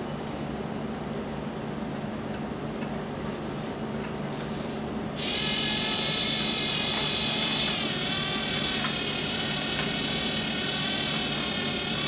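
Lego Mindstorms NXT servo motor and its plastic gear train starting up about five seconds in and running with a steady high-pitched whine, driving the plotter's horizontal pen module back to its reset position. The pitch wavers slightly partway through.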